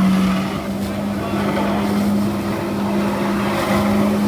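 Jet ski engine running with a steady hum, the power unit that drives a flyboard's water jet.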